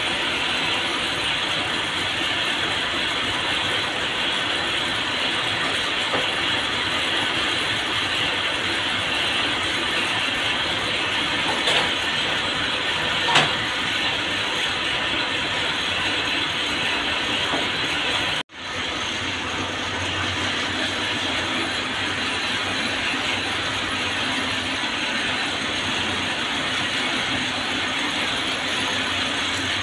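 Cord braiding machines running with a steady mechanical clatter, the sound briefly cutting out about two-thirds of the way through.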